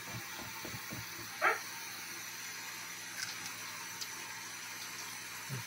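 Quiet room tone with faint soft ticks, broken once about a second and a half in by a brief, sharp sound.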